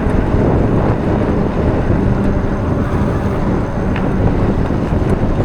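Wind buffeting the microphone and road noise from a moving e-bike ride, a steady low rushing with a faint hum in the middle and one sharp tick about four seconds in.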